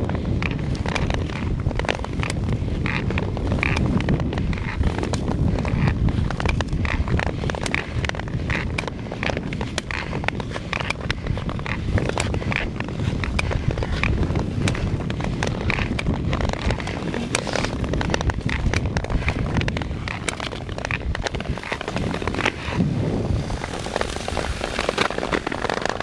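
Wind buffeting the microphone while skating over natural river ice, with a dense, irregular run of sharp clicks and crackles from skate blades on the ice.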